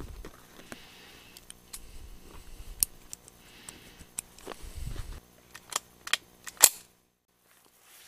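Cartridges being pressed one by one into a Ruger 10/22 rifle's magazine by hand: a run of irregular sharp metallic clicks with some handling rumble, the loudest click a little before the end.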